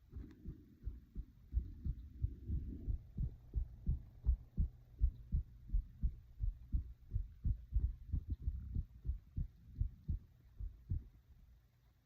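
A person's heart beating in a steady rhythm of low, dull thumps, about one and a half beats a second. A faint breath rises and falls in the middle.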